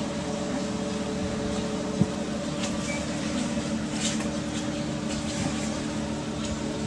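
Steady mechanical hum with several constant tones, with a soft knock about two seconds in and a few faint clicks.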